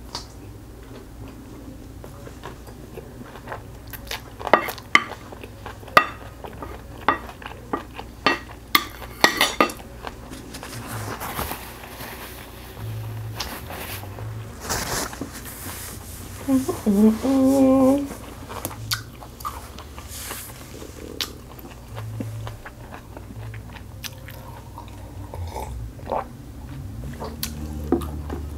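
Close-miked chewing of a big mouthful of kimchi bokkeum (stir-fried kimchi), with a run of sharp wet mouth clicks and crunches in the first ten seconds. About seventeen seconds in there is a brief hummed voice sound.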